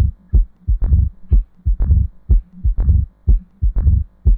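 Heart sounds of mitral stenosis: a sharp, loud beat about once a second, each followed by softer low thuds and a low rumble before the next beat.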